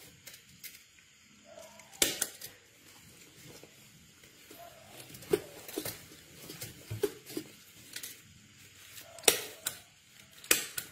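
Rustling and crinkling of a disposable diaper being fitted and fastened, with scattered small clicks and a few sharp, short rasps as its tabs are pulled and pressed, about two seconds in and twice near the end.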